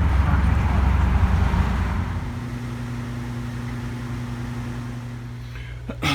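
Car cabin noise: a loud low road-and-engine rumble that drops about two seconds in to a quieter, steady engine hum.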